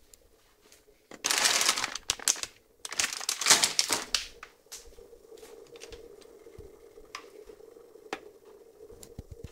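Two bursts of crinkling and rustling, like packaging being crumpled in the hands, about a second in and again around three seconds in. After that comes a faint steady hum with a few light clicks.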